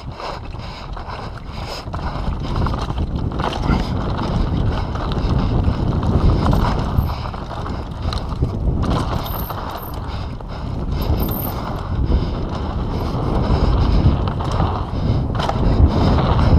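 Mountain bike ridden fast down a dirt trail: the tyres rumble over the ground while the chain and frame rattle, growing louder over the first few seconds as speed builds.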